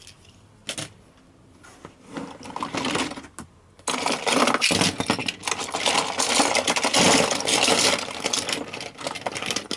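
Diecast metal toy cars clattering and clinking against each other and a plastic box as a hand rummages through the pile. After a single click and a short rattle, the clatter runs on without a break from about four seconds in.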